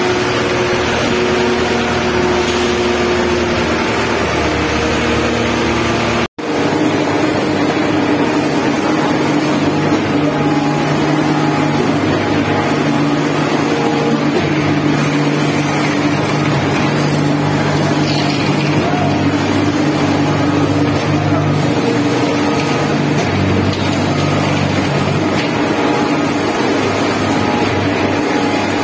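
Shotcrete spraying machine running steadily, a loud continuous machine hum and rush. About six seconds in the sound cuts out for an instant and comes back with a different, steadier hum.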